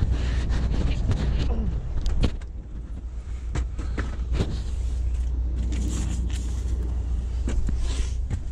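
Truck engine idling with a steady low rumble while someone climbs into the cab, with scattered knocks and handling clatter. A loud thump about two seconds in, as the cab door shuts, after which the rumble is quieter.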